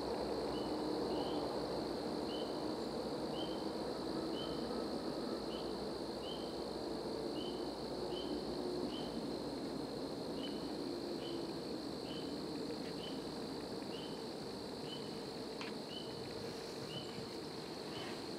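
A small animal's short, high chirp, each with a slight upward lift, repeated about once a second over a steady outdoor hiss, with a couple of faint snaps near the end.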